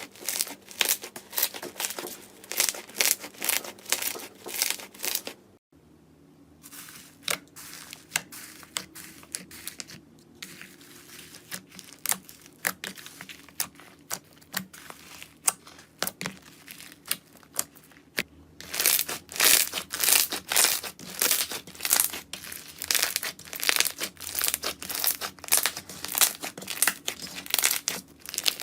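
Slime being squeezed and poked, giving quick runs of crackling pops and clicks, several a second. The sound changes abruptly about 6 seconds in and again about 19 seconds in, and the middle stretch is softer.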